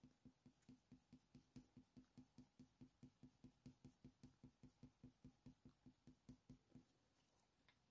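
Very faint, even strokes of a Polychromos coloured pencil blending on hot-press watercolour paper, about four to five a second, stopping about a second before the end.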